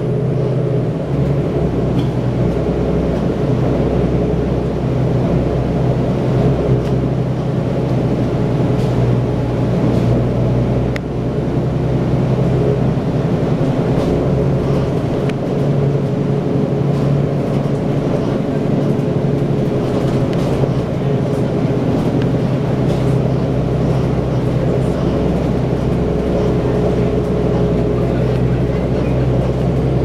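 Cummins ISL diesel engine and Allison B400R automatic transmission of an Orion VII Next Generation transit bus, heard from inside the rear of the cabin while the bus drives: a steady loud engine drone whose pitch shifts a few times as the bus changes speed.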